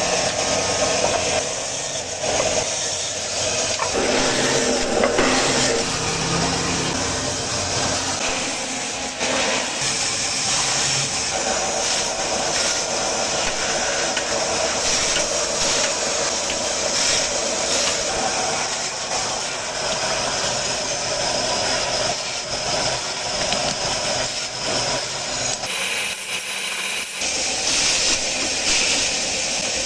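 Machinery running steadily with a constant hiss, likely a woodworking power tool at work; the sound shifts about four seconds in and again near the end.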